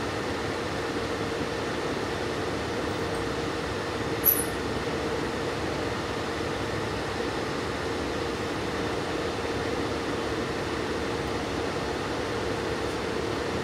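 Cabin running noise of a diesel railcar pulling into a station: a steady rumble with a constant hum. A brief sharp high-pitched click comes about four seconds in.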